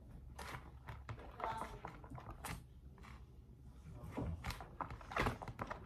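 A wooden stirring stick knocking and scraping against a plastic tub as a slime mixture is stirred: light, irregular taps and clicks, a few to a second.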